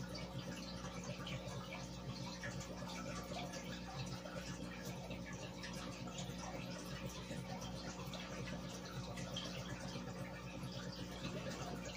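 Aquarium aeration: a stream of fine air bubbles rising and breaking at the water surface, a steady fizzing trickle of many tiny pops, over a steady low hum.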